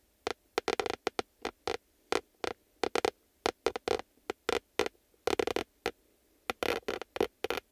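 A cat clawing at couch upholstery: quick, irregular scratching strokes, some single and some in short runs, with brief pauses between them.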